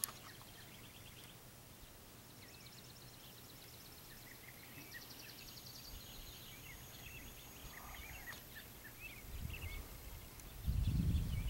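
Faint outdoor ambience: small birds chirping and trilling on and off, over a steady high thin whine. A low rumble swells in about the last second.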